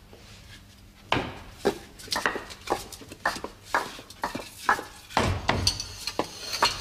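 Irregular wooden knocks and clatters, several a second, starting about a second in, with a heavier thump about five seconds in.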